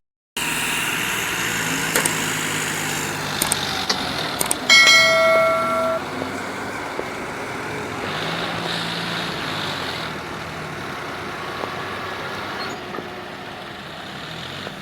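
Heavy farm machinery, a combine harvester and a John Deere 5039 tractor, with their diesel engines running steadily. A horn sounds once about five seconds in for about a second and is the loudest sound, with a few clicks and knocks around it.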